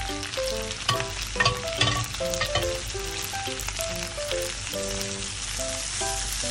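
Butter sizzling as sliced mushrooms, sausage and onion are stir-fried in a wok, a plastic spatula scraping and knocking against the pan, with the loudest knocks between about one and two seconds in. A simple background melody plays along.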